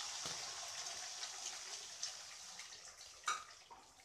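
Eggs sizzling in hot oil in an aluminium kadai, just after being poured in, the hiss slowly fading, with a few crackles and one sharp pop about three seconds in.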